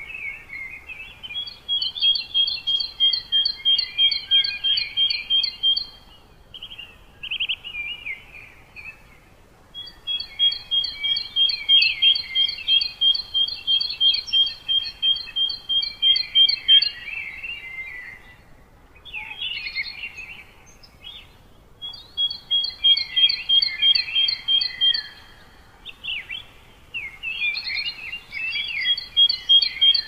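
Songbirds singing: one bird repeats a song of evenly spaced, clear notes at two pitches, about three or four notes a second, for several seconds at a time, four times, with shorter chirps and twitters from other birds between.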